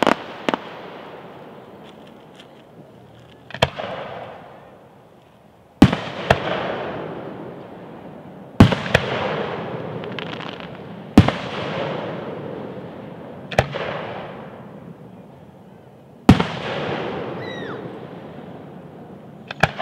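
Aerial fireworks shells bursting one after another: about seven sharp bangs, two to three seconds apart, each followed by a long rolling echo that fades before the next.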